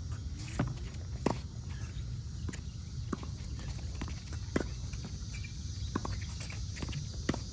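Scattered sharp taps of tennis play on an outdoor hard court: footsteps and ball strikes, a few louder than the rest, over a steady high hiss.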